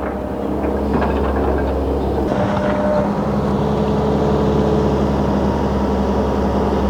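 Heavy construction machine's diesel engine running steadily, with faint whining tones that come and go above the engine sound.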